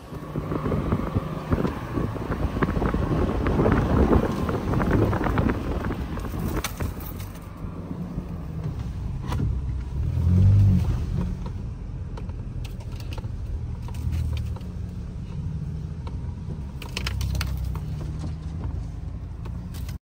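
Ford Ranger Raptor pickup with a 3.0-litre petrol V6, driving through sand with a steady low engine rumble. The engine swells louder about ten seconds in, with scattered clicks and knocks over it.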